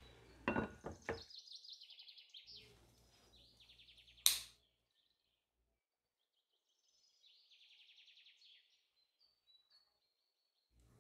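Glass pot lid clattering onto a metal pot as it is set down, then small birds chirping and trilling in quick high runs twice. A single sharp click, from a utility lighter being sparked, about four seconds in.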